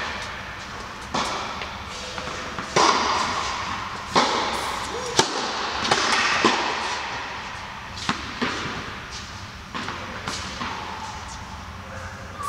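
Tennis rally in an indoor hall: racket strikes and ball bounces as sharp pops every second or so, each ringing on in the big hall's echo.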